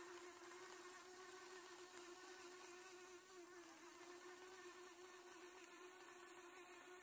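Small electric gear motors of a homemade remote-controlled walking robot, running with a faint, steady hum.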